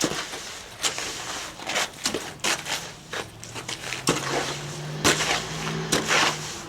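Wet hand-mixed bagged concrete being worked with tools: irregular crunching, scraping strokes. A low steady hum comes in about halfway through and stops shortly before the end.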